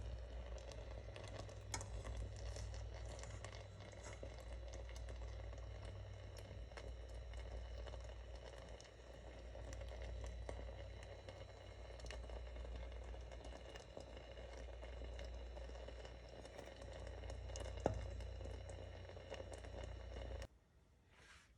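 Strawberry jam mixture cooking in a pot, a faint steady bubbling and crackle over a low hum, with a couple of sharp clicks of a utensil against the pot. It cuts off suddenly shortly before the end.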